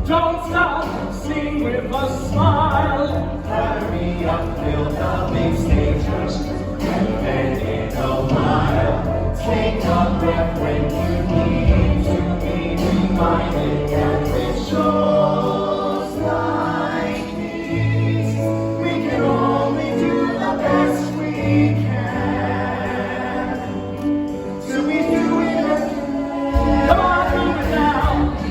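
Broadway show-tune recording with ensemble singing over the band. A steady bass beat drops out about halfway, leaving held notes and voices.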